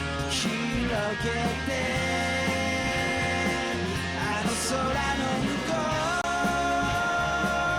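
Background music: a rock song with a sung melody over guitar, bass and drums.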